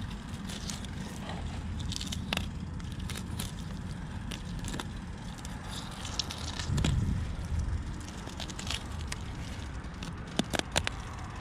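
Fillet knife cutting along the backbone of a large mangrove snapper: a run of small scattered crackles and scrapes as the blade works through flesh and bone. A brief low rumble comes just past the middle.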